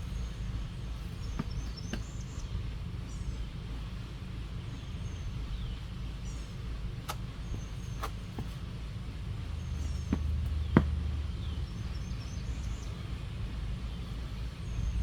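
Outdoor ambience: a steady low rumble with faint bird chirps repeating every second or two. Scattered soft knocks come through it, and a sharper knock about eleven seconds in.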